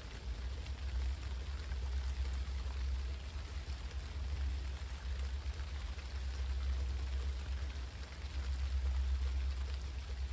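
Steady rain falling, over a constant low rumble.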